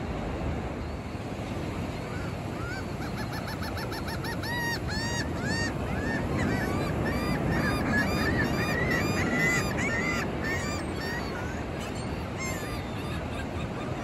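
Gulls calling over steady surf. A quick run of short notes starts about two and a half seconds in, followed by a string of longer rising-and-falling cries and overlapping calls that die away about eleven seconds in.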